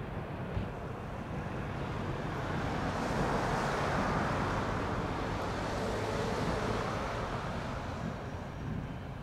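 A passing road vehicle: its noise swells to a peak in the middle and fades again, over wind on the microphone.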